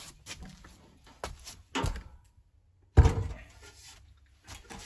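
England's Black Bear steel wood stove being manoeuvred onto a brick hearth: a series of knocks and thumps as it is lifted and set down. The heaviest thump comes about three seconds in.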